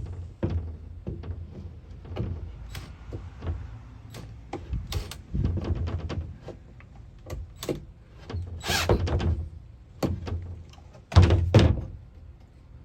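Irregular knocks, thumps and rattles of a wooden framing piece being handled and fitted against the van's body. The loudest thumps come about nine and eleven seconds in.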